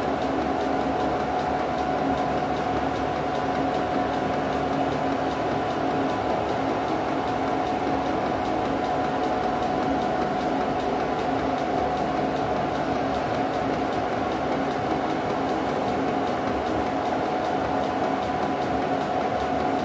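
Milling machine running steadily as its cutter cuts into a blued metal part, a constant machine hum with a steady whine.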